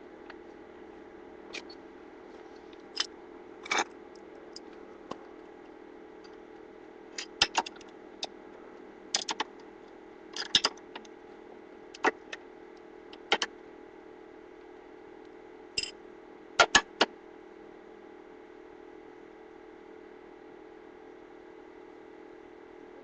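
Sharp clicks and clinks of tools and hardware being handled, coming singly and in quick clusters, the loudest a rapid triple click near the end, over a steady low hum.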